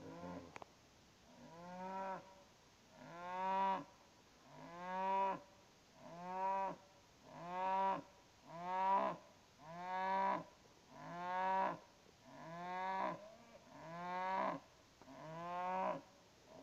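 Young Holstein cattle mooing over and over, about eleven calls, one every second and a half, each rising then falling in pitch.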